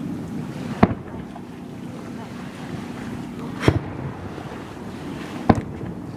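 Three fireworks bursting: sharp booms about a second in, about midway and near the end, over steady wind noise on the microphone.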